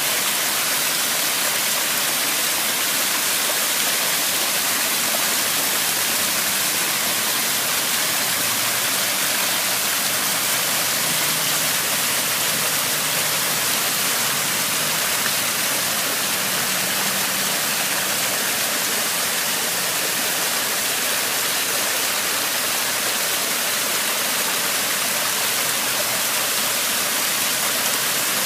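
Steady rushing of running water, an even hiss without breaks or changes in level.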